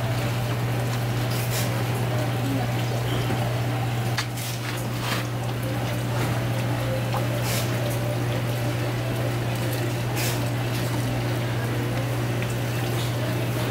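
Fish tank's water pump humming steadily, with water running and bubbling, and a few faint clicks now and then.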